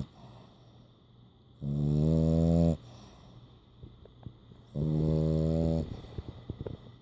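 French bulldog snoring twice, about three seconds apart. Each snore is a low, steady-pitched drone lasting about a second, with faint clicks in the quiet gaps between.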